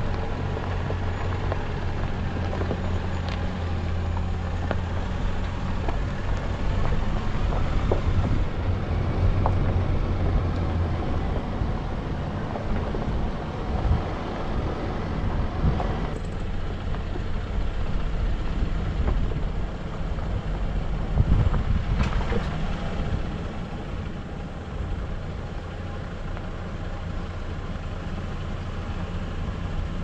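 A four-wheel drive's engine running steadily as it drives a dirt track, with tyre and gravel noise, picked up by a camera mounted on the outside of the vehicle.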